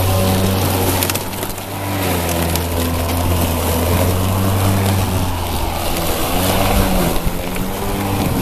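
Hart battery-powered electric lawn mower running while cutting high grass, its motor hum wavering up and down in pitch under the changing load. A brief rattle of clicks about a second in as grass and debris strike the blade.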